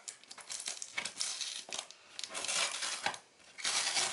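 Clear plastic wrapping crinkling and rustling in a run of bursts as a feather quill dip pen with a metal holder is pulled out of it.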